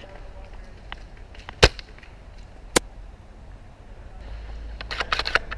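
Airsoft gun firing: a sharp crack about a second and a half in, a second, quieter one about a second later. Near the end comes a quick run of clicks over a low rumble.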